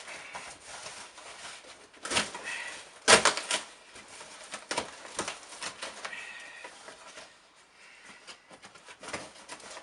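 Cardboard box and packing being ripped open by hand: irregular tearing and rustling, loudest in a sharp rip a little after three seconds in.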